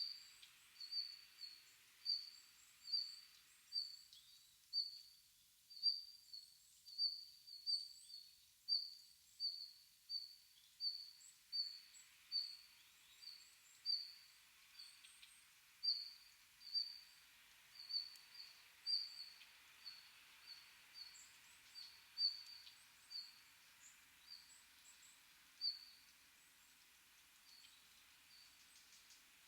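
A small bird repeating a short, high call about once a second, the calls growing sparser near the end, over a faint steady hiss of forest ambience.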